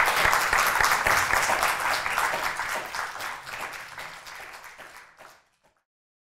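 Audience applauding with dense, overlapping hand claps, loud at first, then dying away and stopping about five seconds in.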